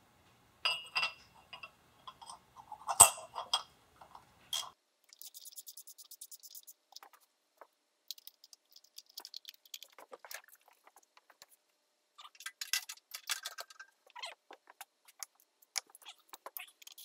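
Hand tools and small metal engine parts clinking and knocking, with a sharp metal clank about three seconds in, then runs of fast, light clicking.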